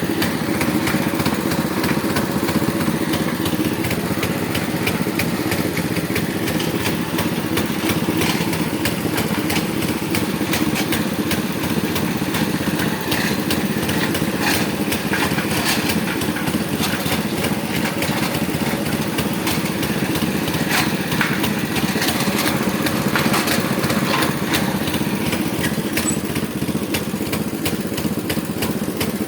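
Small engine of a well-drilling machine running steadily at a constant speed, with many short sharp clicks and knocks over it.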